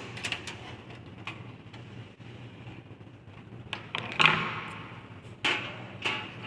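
Clicks, taps and a short scraping rattle of metal and plastic computer parts being handled while a desktop system unit is taken apart, the loudest rattle about four seconds in.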